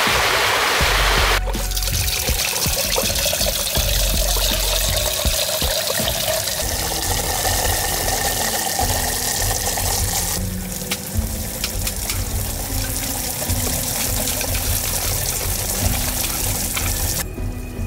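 Water running out of many small holes in a clay pot and splashing into a concrete-lined pit. It is preceded by about a second of a rushing rocky stream.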